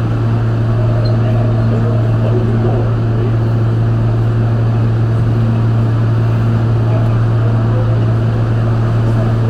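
Inside an R160 subway car: a steady low electrical hum with a fainter higher tone over it, on a bed of running noise, holding level throughout.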